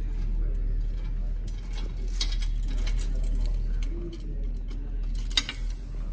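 Keys jangling and scattered small metal clicks as a key works the lock on a bulk gumball vending machine's metal lid, with one sharp click about five seconds in, over a steady low hum.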